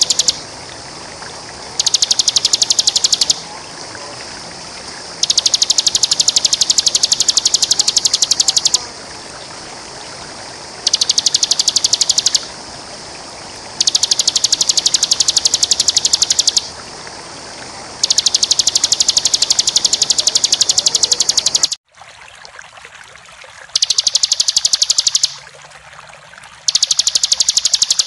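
Bar-winged prinia (ciblek) singing in long, very fast, continuous high-pitched trills ("ngebren"). The bouts come again and again, each one to three seconds long, with short pauses between them, over a steady background hiss. There is a brief dropout about two-thirds of the way through, after which the background is quieter.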